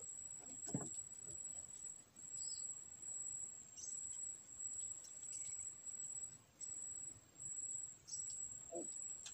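A steady high-pitched insect drone from the riverside vegetation, with a few short bird chirps. Twice a brief lower sound, about a second in and near the end.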